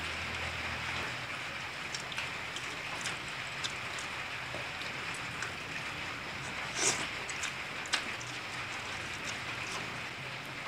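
Close-miked eating of a grilled chicken thigh: scattered wet mouth clicks and smacks from biting and chewing the meat, the two sharpest about seven and eight seconds in. They sit over a steady hiss.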